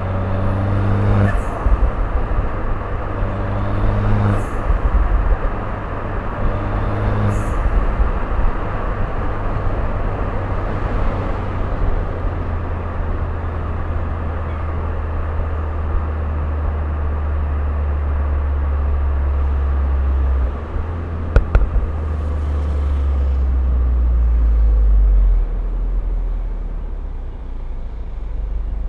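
Turbocharged Mini Cooper engine running at low speed, a steady low drone that slowly swells and then drops back near the end. Three short pitched sounds come in the first eight seconds, and a couple of sharp clicks about two-thirds through.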